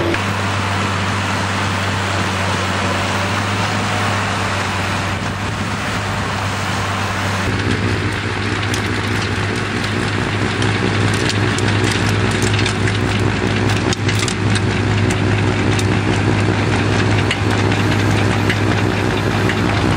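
Avant compact loader's Kubota diesel engine running steadily under load while its snow blower attachment throws snow. The sound shifts about seven and a half seconds in, and scattered sharp clicks then ride over the engine.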